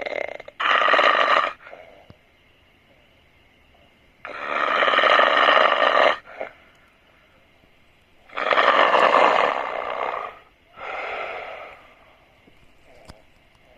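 A person snoring loudly: long snores of one to two seconds come about every four seconds, some in two parts, with quiet pauses between.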